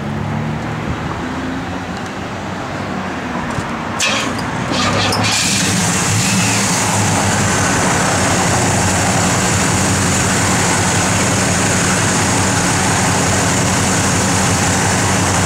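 1971 Pontiac LeMans Sport's 400 cubic-inch V8 with four-barrel carburettor and dual exhaust being started: a short burst of starter cranking about four seconds in, then the engine catches and settles into a steady idle.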